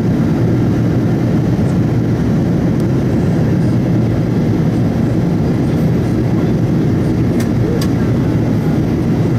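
Steady in-flight cabin noise of a Boeing 777-200ER, heard from a window seat beside its GE90 engine: a loud, even, low roar of engine and airflow. Two faint ticks come about three-quarters of the way through.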